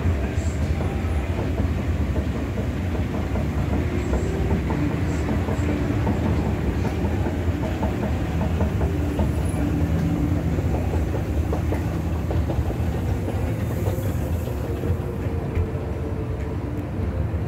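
Outdoor escalator running: a steady low mechanical rumble from the moving steps and drive, easing slightly near the end.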